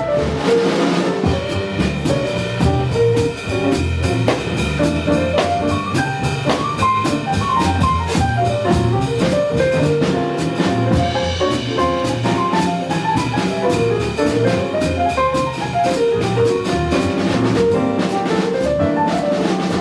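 Jazz ensemble playing live: a fast line of short single notes over bass, piano and drum kit, with cymbal strokes throughout.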